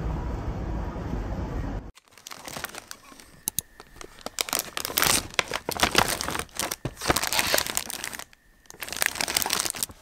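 Steady low background noise that cuts off sharply about two seconds in, followed by plastic bags and wrappers crinkling and rustling in irregular bursts as items are packed into a tote bag.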